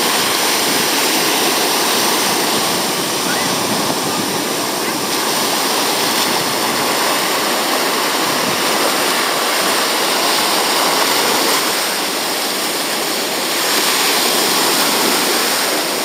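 Ocean surf breaking and washing through the shallows, a steady loud rush of water that eases slightly for a moment past the middle.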